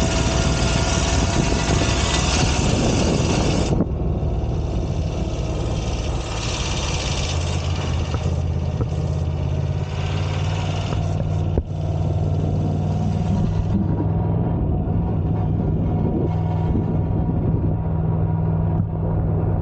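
Moto Guzzi V85 TT's air-cooled V-twin running. A loud rush of wind noise cuts off suddenly about four seconds in, leaving the engine's steady low beat. A rattle comes from a half-loose exhaust header cover, vibrating because one of its screws has worked loose.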